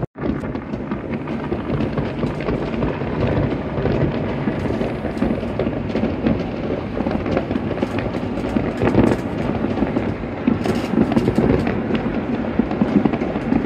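Many distant fireworks and firecrackers going off across a city at once, blending into a continuous rumble with scattered sharp pops and cracks.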